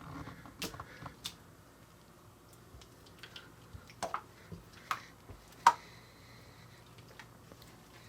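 Sticky slime made from Coca-Cola giving small wet clicks and pops as a hand works it and pulls it off the fingers; a handful of sharper pops are scattered through, the loudest a little past the middle.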